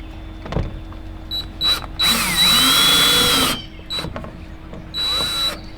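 Power drill running in short bursts while a drill bit marks screw holes in wood: a few quick blips, then a long run of about a second and a half with the motor dipping in speed and picking back up, and a shorter run near the end.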